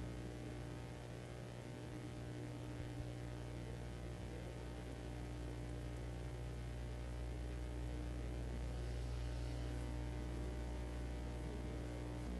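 Steady low electrical hum with a faint even hiss from the hall's sound system: mains hum and room tone with no one talking.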